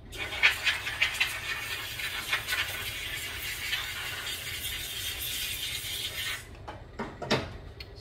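Compressed air from a blow gun hissing as it blows out a Tecumseh carburetor's float bowl, uneven for the first second or so, then steady, cutting off abruptly after about six seconds. A few light knocks follow near the end.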